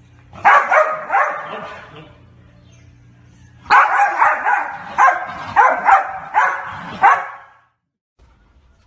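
A dog barking in two runs: a few quick barks in the first two seconds, then after a short pause a longer string of about eight barks that stops abruptly.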